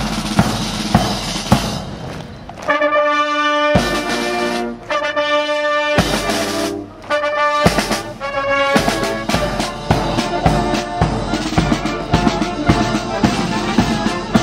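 Military brass band playing: held chords from trombones and other brass with short breaks between them, then a steady marching drum beat with brass in the second half.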